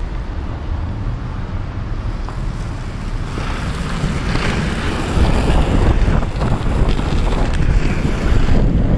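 Wind rushing over the GoPro's microphone together with the Stereo Vinyl Cruiser skateboard's wheels rolling on asphalt, one steady rushing noise. It grows louder from about three seconds in as the board picks up speed downhill.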